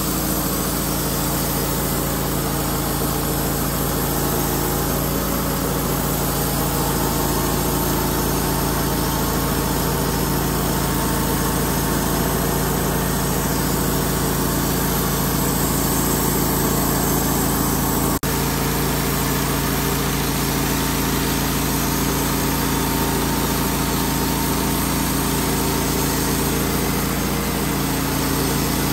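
Wood-Mizer LT15 portable band sawmill running steadily, its air-cooled gas engine driving the band blade as the saw head is cranked through a pine log.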